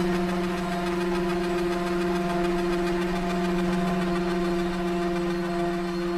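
A steady low hum with overtones, unchanging in pitch.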